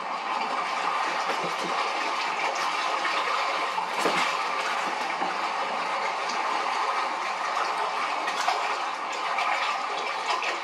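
Steady rushing, bubbling water sound from a television playing a goldfish video, with a few light taps now and then.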